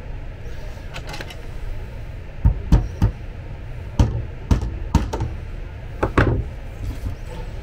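Small hammer tapping on a part of an electric bed's drive actuator during assembly: about eight sharp knocks in a loose, uneven rhythm, beginning a couple of seconds in, over a low steady hum.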